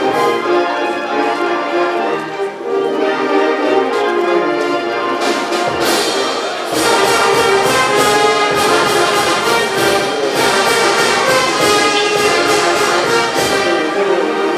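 Brass band playing live dance music, horns carrying the tune; drums join about six seconds in with a steady beat.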